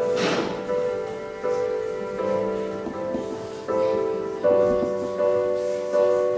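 Piano playing a slow, gentle accompaniment to a carol, a new chord struck about every three-quarters of a second and left to fade. A short breathy hiss comes right at the start.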